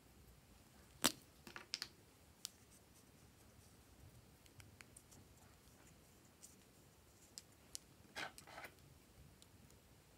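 Small plastic stick tubes handled close up: a sharp click about a second in as a cap comes off, a few lighter clicks just after, and a short run of clicks near the end.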